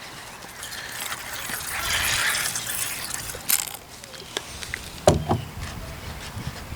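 Glue-and-contact-solution slime being stirred and worked by hand, a wet, sticky scraping that swells about two seconds in. Scattered clicks and knocks run through it, the sharpest about five seconds in.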